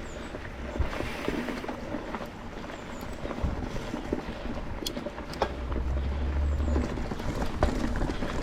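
Mountain bike ridden along a dirt trail: tyre noise with scattered clicks and rattles from the bike. A low rumble of wind on the camera microphone comes in for about a second and a half past the middle.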